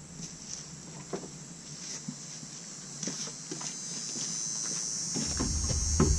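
Footsteps and light wooden knocks as a solid oak shelf board is carried and set onto a wooden display unit's cleats, with a firmer knock near the end as it goes into place. A steady high hiss runs underneath, growing louder near the end, and a low rumble comes in about five seconds in.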